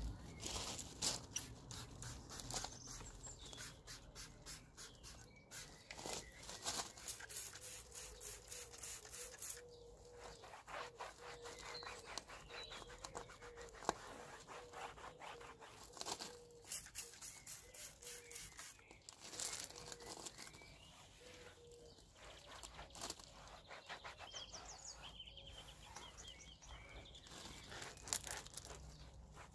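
Microfibre cloth wiping over an alloy wheel: repeated quick rubbing strokes with short pauses between them.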